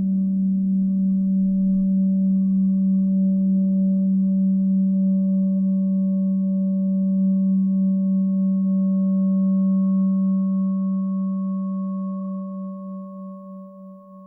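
Minimal experimental drone music: a steady low sine-like tone held with fainter higher tones above it and a slight wavering in level. It fades out over the last few seconds.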